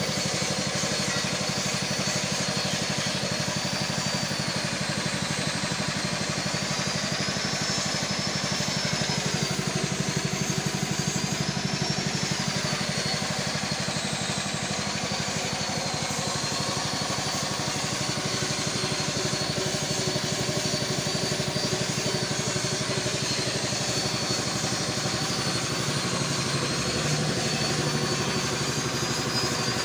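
Single-cylinder horizontal diesel engine running steadily at idle, with a thin high whine that wavers up and down in pitch over it.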